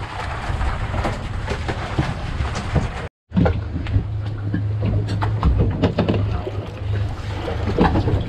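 A fishing boat's engine running under wind and water noise, with scattered knocks. The sound cuts out for a moment about three seconds in, and after that the engine's low steady hum is plainer.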